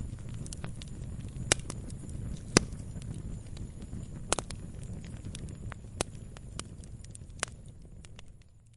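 Log fire burning: a steady low rumble of flames with irregular sharp crackles and pops from the wood, two of them loudest in the first few seconds. The sound fades out near the end.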